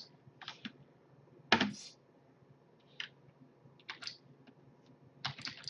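Computer keyboard keys pressed one at a time: a handful of separate, fairly quiet taps, one louder about a second and a half in.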